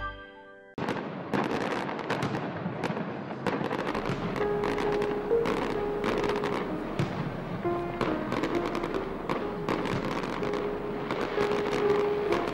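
Fireworks and firecrackers crackling and popping in a dense, irregular stream. The tail of a music cue fades out at the start, and soft held music notes come in about four seconds in.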